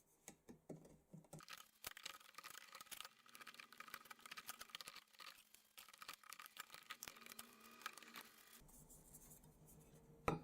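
Faint, quick, irregular scraping and clicking of a hand tool cleaning the edges of freshly drilled holes in the chandelier's brass plate, deburring them. The scraping stops about eight and a half seconds in, and a single sharp click follows near the end.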